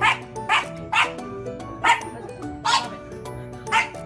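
French bulldog puppy barking, six short sharp barks at uneven intervals, over background music.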